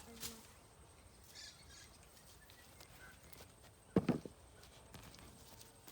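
Quiet outdoor ambience with faint rustles and clicks, and a short dull thump about four seconds in.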